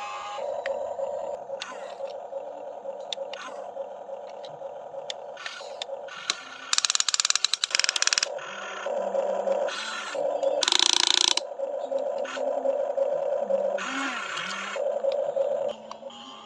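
Small electric motors and gearboxes of a radio-controlled Huina excavator whirring in bursts as its functions are worked, with a rapid ratcheting clatter of gears about seven seconds in and louder whirring bursts around eleven and fourteen seconds.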